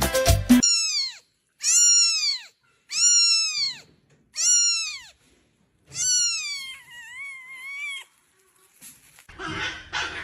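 A cat meowing: four short high meows about a second apart, each rising then falling in pitch, followed by one longer meow that wavers in pitch.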